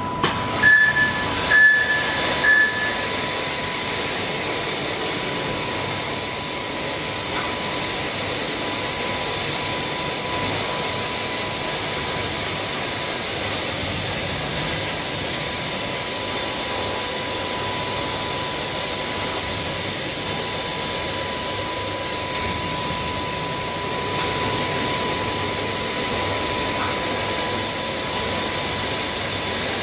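Leisuwash touchless automatic car wash machine running its wash cycle: a steady loud hiss of its high-pressure water spray with a steady whine under it. Three short beeps from its control panel come in the first few seconds.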